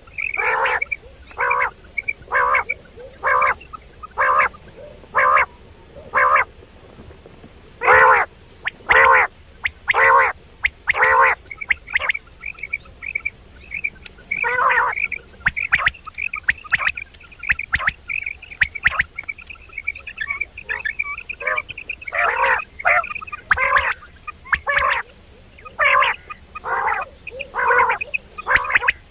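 Quail calling over and over: short, harsh, loud calls, about one a second at first and then in quick clusters, with softer twittering between them in the middle.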